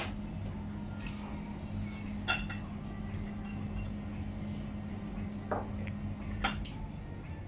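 Handheld food smoking gun's small fan motor humming steadily as it pumps wood smoke through its hose into glass cloches, cutting off near the end. Three light glass clinks as the glass domes are set down on their glass plates.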